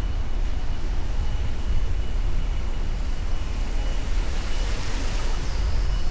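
Traffic and road noise heard from a moving vehicle: a steady low rumble with hiss and a faint steady high tone. The hiss grows louder about five seconds in.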